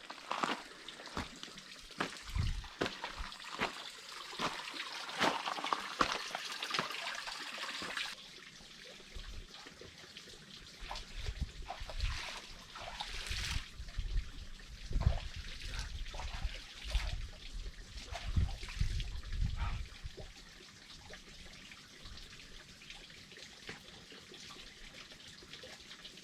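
Footsteps crunching on a rocky, gravelly trail, irregular short crunches at walking pace, with intermittent low rumbles in the second half.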